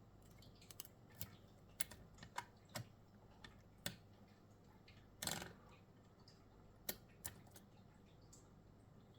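Faint, scattered metallic clicks and taps from a picked Winkhaus lock cylinder and the lock-picking tools being handled, with one short rattling scrape about five seconds in.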